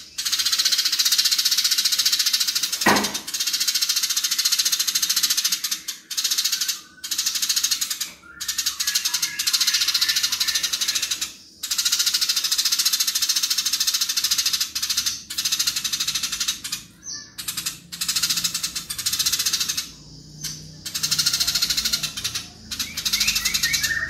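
Eurasian tree sparrows giving loud, rapid, dense fighting chatter in long runs, broken by short pauses every few seconds. A single brief knock sounds about three seconds in.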